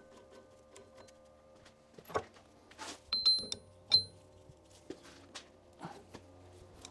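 Sharp metal clinks and knocks of steel tools and parts being handled, a few of them ringing briefly about three to four seconds in, over a faint steady hum.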